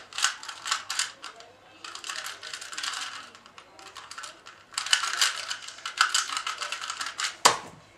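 Rapid plastic clicking and clacking of a 2x2 puzzle cube being turned fast during a timed speedsolve, in three spells with short pauses. It ends with a sharp knock near the end as the solve finishes.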